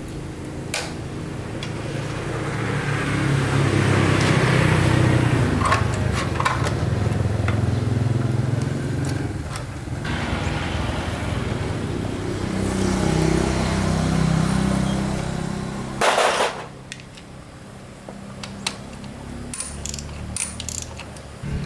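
Four-stroke motorbike engine running, its pitch and loudness rising and easing a few times. About 16 seconds in there is a short loud burst, after which the engine sound drops away and only scattered sharp clicks and knocks are heard.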